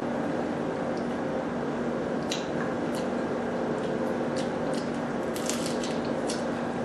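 Close-up eating sounds of lobster: wet squishing and smacking as the meat is pulled from the shell and chewed, with scattered sharp clicks. A steady low hum runs underneath.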